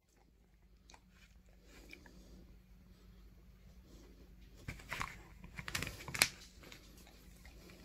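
Beagle chewing and gnawing on a spiky rubber bone toy, with soft scattered crunches at first and then a run of louder, sharper bites about five to six seconds in.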